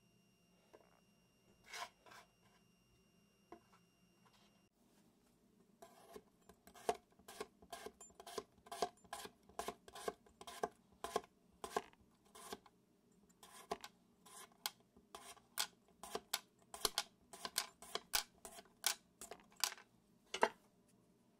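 Chef's knife slicing a raw potato into thin slices on a wooden cutting board, the blade coming down against wooden chopsticks laid either side. A regular series of crisp cuts and taps, about two a second, starts about a quarter of the way in, with a short pause near the middle.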